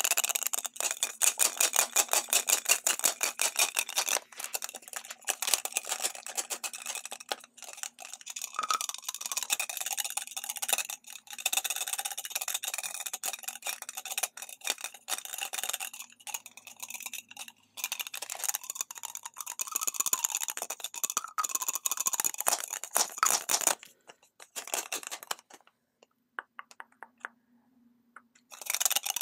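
Fingernails tapping and scratching rapidly on a pink lipstick tube, in quick uneven runs of small clicks. The sounds stop for a few seconds near the end.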